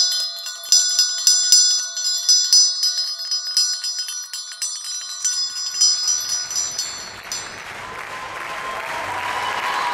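Hand-held metal bell shaken in repeated, irregular strokes, its high ringing dying away about seven seconds in. Applause then swells in.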